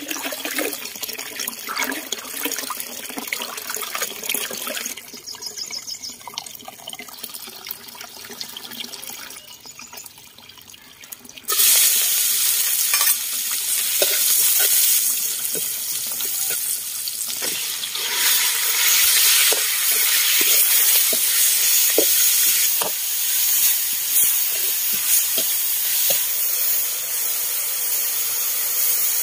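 Water splashing as leafy greens are washed under running water. Then, about twelve seconds in, a sudden loud sizzle as minced garlic hits hot oil in a wok. Later, sliced meat fries loudly while a metal spatula scrapes and stirs it around the steel wok.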